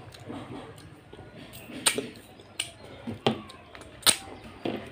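Close-miked eating sounds of rice congee eaten by hand: about five sharp, wet mouth smacks and clicks, spaced well under a second apart, starting about two seconds in.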